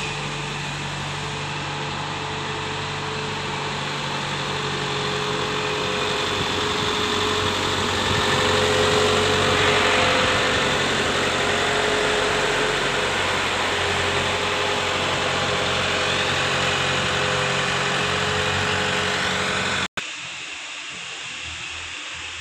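Engine of a Combilift carrier running steadily as it moves with a large steel bridge member. It grows louder as it comes close, with a faint steady whine above the engine note. About twenty seconds in the sound cuts off abruptly, leaving a quieter background.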